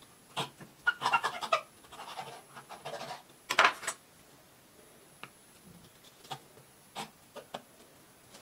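Knife puncturing the top of a small cardboard juice carton and a wooden ice-cream stick being pushed into the hole: a run of scratching, rubbing noises in the first four seconds, loudest near four seconds in, then a few light taps as the carton is handled.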